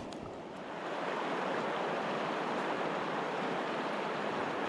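A fast-flowing river rushing steadily, growing louder about a second in.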